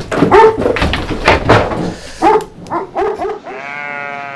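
Large shepherd dogs barking, a quick irregular run of loud barks. About three and a half seconds in the barking stops and a long, steady, high-pitched call begins.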